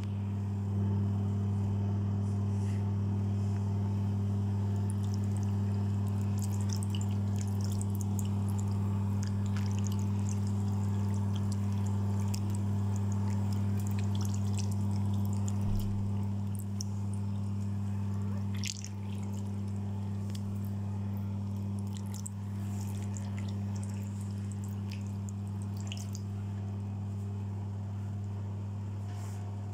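Bathroom extractor fan humming steadily, with water running and trickling, and small scattered drips and clicks.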